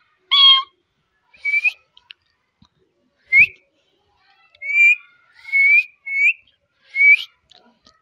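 Indian ringneck parakeet giving a string of about seven short whistles, each one rising slightly in pitch, with brief pauses between them.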